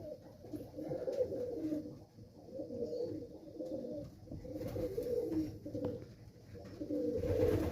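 Domestic pigeons cooing in a loft, one low wavering coo after another.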